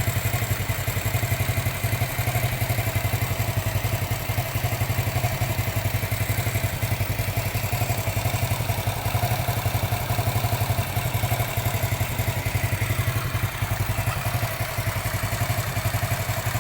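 Motorcycle engine more than 20 years old idling steadily, a fast even beat, during a leak check of its crankcase centre gasket, which now stays dry with no oil seeping.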